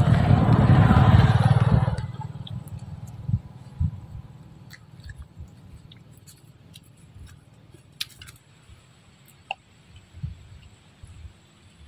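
A loud low rumble for about the first two seconds, then quiet with scattered small clicks and taps of a baby macaque chewing and handling vegetable pieces.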